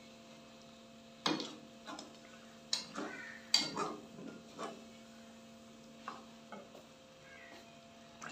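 A slotted metal spatula scraping and clinking against an aluminium cooking pot as thick chicken curry is stirred: a string of short scrapes and knocks, most of them in the first half, the loudest about three and a half seconds in. Under it runs a faint steady hum.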